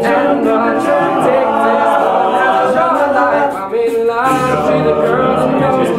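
Male a cappella group singing together in several-part harmony, many voices holding and moving chords with no instruments.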